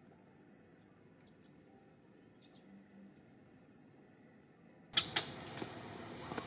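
Near silence with a faint hiss for about five seconds, then two sharp clicks and a louder, steady background noise.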